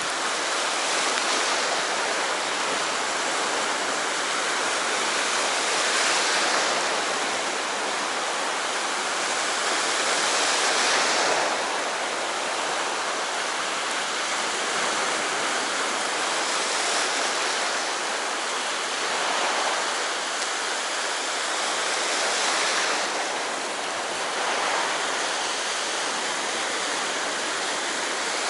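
Sea surf washing on the shore: a steady rush of water that swells every few seconds as waves come in.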